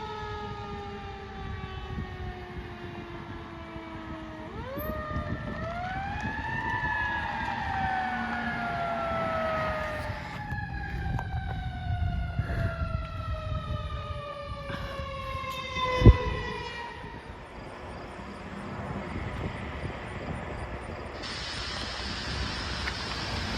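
Fire apparatus sirens wailing and slowly falling in pitch. About four seconds in, a siren winds up sharply and then falls slowly, and a second wail joins around ten seconds. A brief sharp bang near sixteen seconds is the loudest moment; after it the sirens die away, leaving low engine and traffic noise.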